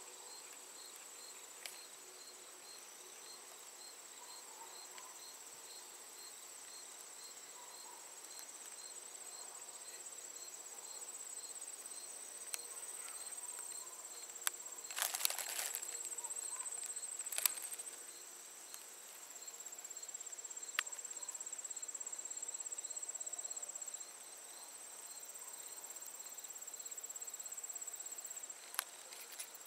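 Crickets and other field insects chirping in a steady chorus: a continuous high trill with a slower pulsed chirp about twice a second. About halfway through come a brief rustle and a few sharp clicks.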